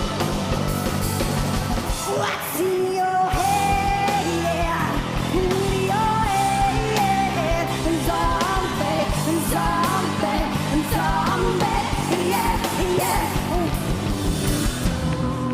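Heavy rock band music with a steady driving beat, and a woman's voice singing a melody over it from about two seconds in.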